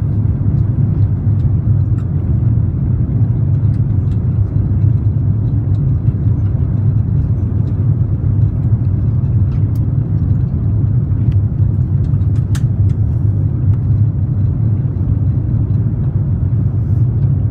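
Steady low cabin drone of an Airbus A350-900 in flight, engine and airflow noise heard from a window seat, with a few faint clicks.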